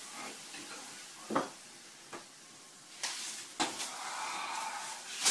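Leafy sauna broom (venik) swished over a dog on a sauna bench: several quick swishes, the strongest about a second and a half in, then a rustling hiss of leaves.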